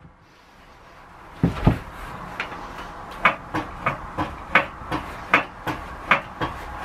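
A motorcycle is taken off its centre stand, with two heavy clunks close together about a second and a half in. Then comes a run of sharp, regular clicks or knocks, about three a second, from the bike's frame and rear end.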